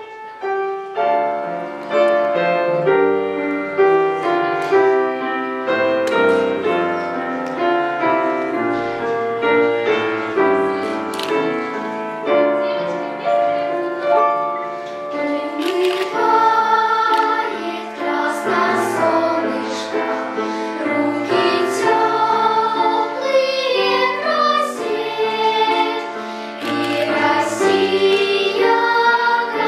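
Instrumental introduction led by piano, its notes struck and fading in a flowing accompaniment. From about halfway a wavering, sustained melody line joins over it, leading into a children's choir song.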